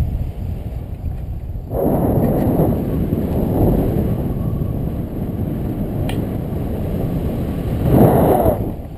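Wind rushing over the action camera's microphone during a tandem paraglider flight: a deep, rumbling buffet. It grows stronger about two seconds in, swells to its loudest near the end, then falls off.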